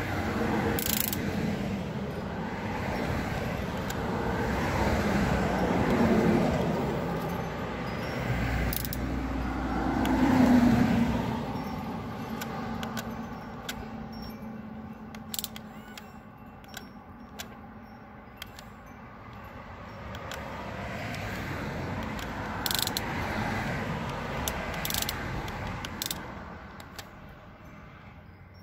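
Small electric motors and plastic gearboxes of a 1:16-scale Double E radio-controlled excavator whirring as it swings and works its boom, with light clicks of the gears. Passing road traffic swells in and out behind it.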